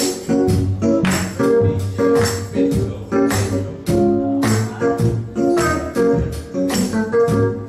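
Live gospel music with a steady beat of about two strokes a second, a tambourine shaking on the beat over sustained organ-like chords.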